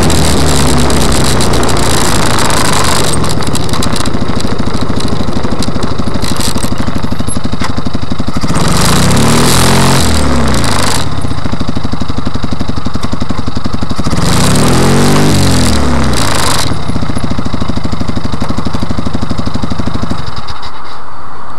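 Joyner 650cc buggy engine settling to a loud, steady idle, revved up and back down twice, then switched off near the end.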